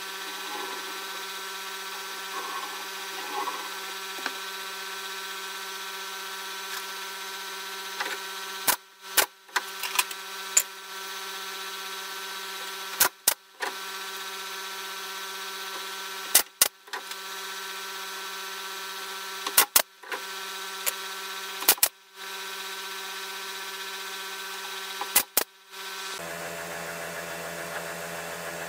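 A steady hum made of several fixed tones, with about a dozen sharp clicks, mostly in pairs, each followed by a brief dropout. The hum changes pitch near the end.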